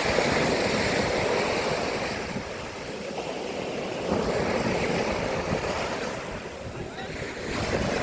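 Sea waves washing in, swelling and easing about every three to four seconds, with wind buffeting the microphone.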